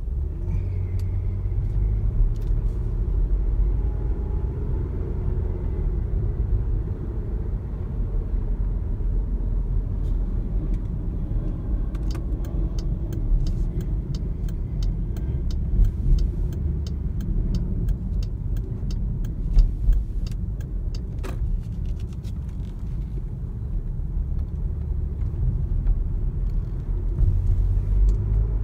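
Car-cabin road and engine rumble from a car driving at steady city-street speed. A scatter of light clicks runs through the middle stretch.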